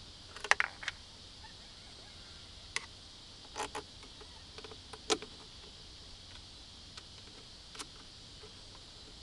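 Handling noise: a few scattered sharp clicks and knocks over a steady hiss. The loudest are about half a second in and about five seconds in.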